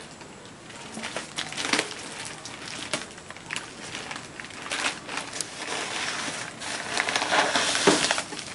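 Plastic wrap and packing tape on a parcel being cut and torn open by hand: irregular crinkling and crackling, growing busier and louder in the last few seconds.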